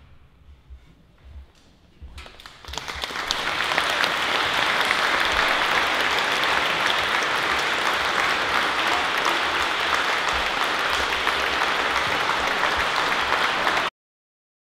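Audience applause: after a short hush it breaks out about two seconds in, builds within a second or two to steady, loud clapping, and cuts off suddenly near the end.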